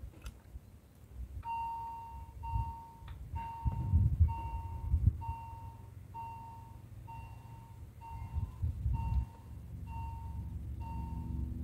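Swiss level-crossing warning bell sounding its electronic ding, a clear tone repeating evenly about one and a half times a second from about a second and a half in: the signal that a train is approaching and the crossing is closing. Low rumbles lie underneath, and a steady low hum comes in near the end.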